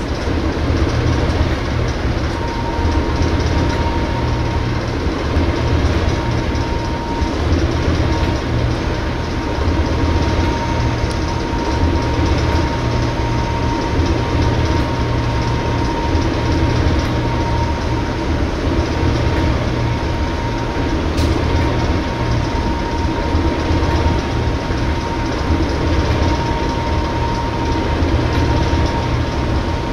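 Class 37 diesel-electric locomotive's English Electric V12 diesel engine running, a steady heavy rumble as the locomotive moves slowly along the line, with a steady high turbocharger whistle above it.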